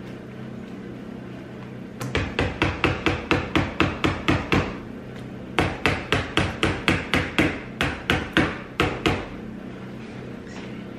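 A mixing utensil knocking rapidly against a bowl while slime is stirred: two runs of quick knocks, about five a second, starting about two seconds in, breaking off briefly near the middle, then resuming until near the end.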